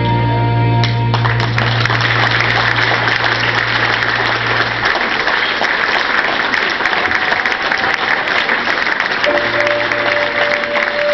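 Audience applauding, breaking out about a second in and keeping on, over English waltz music. The music's low notes drop away midway and come back near the end.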